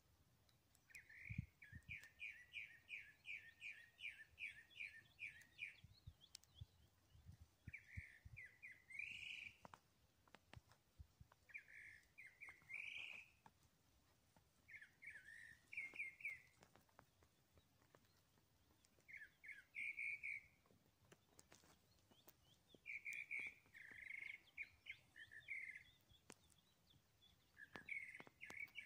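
Faint songbird singing: an opening run of quick, evenly spaced chirping notes lasting about five seconds, then shorter phrases of a few notes every three to four seconds.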